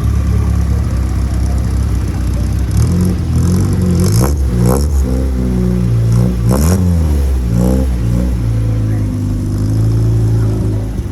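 SEAT 127's small four-cylinder engine idling, then revved in a few quick throttle blips, each rising and falling in pitch, from about four seconds in, before settling back to a steady run.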